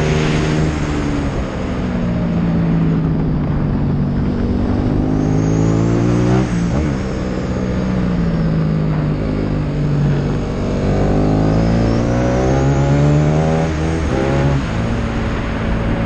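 Motorcycle engine at track pace, heard on board: the revs fall, then climb, twice over. The pitch jumps abruptly about six seconds in and again near the end, as gears change. Wind rushes steadily over the on-board camera.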